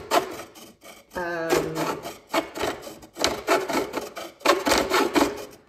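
Small hacksaw cutting a groove into a piece of wood, in quick back-and-forth rasping strokes.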